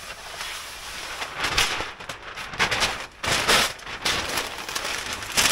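Brown kraft packing paper being pulled and crumpled by hand, rustling throughout with several louder bursts.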